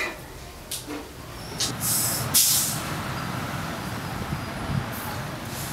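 Street traffic: a short, loud hiss about two seconds in, then a steady low rumble of vehicle engines.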